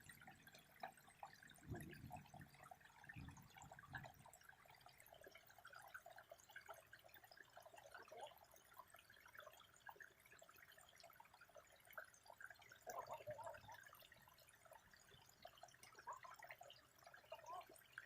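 Faint water trickling and dripping, with many small scattered splashes. A few low thumps come about two to four seconds in.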